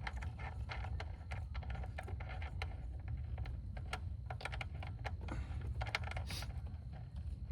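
Small metal clicks and taps, irregular and close together, as a banjo bolt and its washers are handled and fitted onto the fuel line, over a steady low hum.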